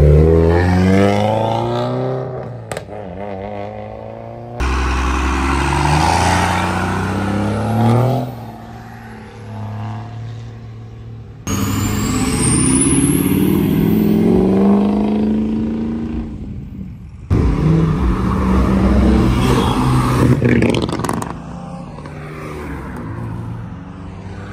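Cars accelerating hard, their engine notes climbing in pitch, in four short segments that cut abruptly from one to the next. A high whistle rises steeply about twelve seconds in.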